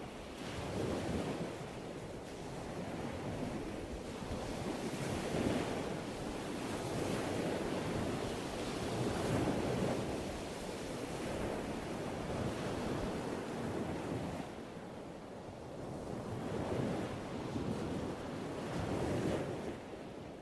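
Ocean surf: waves breaking and washing in, the rushing swelling and easing every few seconds.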